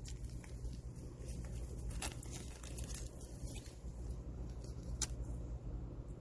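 Steady low hum with faint scattered rustling and a couple of sharper clicks, about two seconds in and again about five seconds in.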